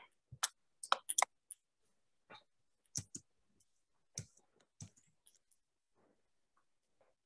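Irregular, fairly faint clicks and taps, bunched around the first second and sparser after, from handwriting being drawn onto a computer whiteboard with a pointing device.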